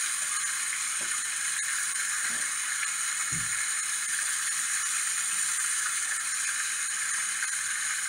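Steady rushing hiss of a small waterfall splashing onto a rocky stream bed, with one brief low thud about three seconds in.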